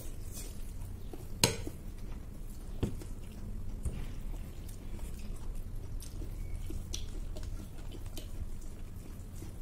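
Close-miked eating sounds: chewing and biting, with small clicks of fingers and food against plates. A sharp click comes about a second and a half in and another near three seconds, over a steady low hum.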